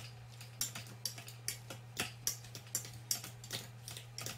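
Hand potato masher mashing cooked potatoes and butter in an Instant Pot's stainless steel inner pot, knocking against the pot in a steady rhythm of about three strokes a second.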